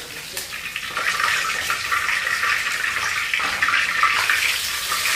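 Hot cooking oil sizzling steadily around whole fish deep-frying in a wok, with small crackles, getting louder about a second in.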